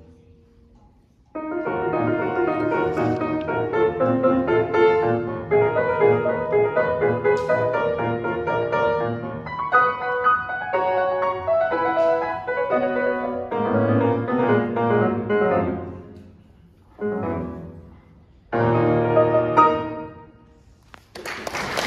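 Grand piano playing a lively piece of many quick notes, then a short phrase after a pause and loud closing chords near the end. Applause breaks out just as the last chord dies away.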